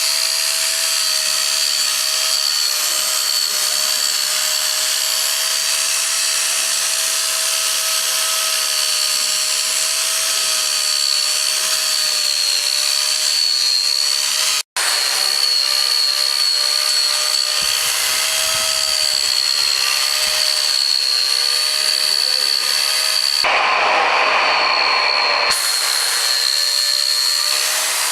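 Handheld power tool running steadily at high speed against wood, with a constant high whine over a noisy grinding hiss. The sound drops out for an instant about halfway, and for about two seconds near the end it turns rougher and noisier.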